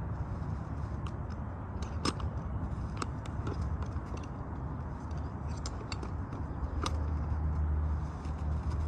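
Scattered light clicks and crackles of asphalt roof shingles being handled and positioned, over a steady low rumble.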